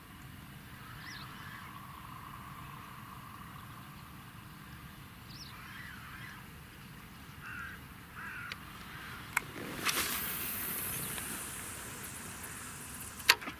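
Birds calling faintly on and off, in short separate calls. About two-thirds of the way through comes a sharp click and a brief rush of noise, and another sharp click follows near the end.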